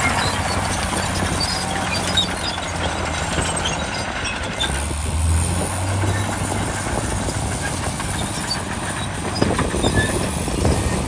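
Heavy diesel earthmoving machinery running, its engine note dipping lower and pulling for a moment around the middle, with steady rattling and a few metallic clanks near the end.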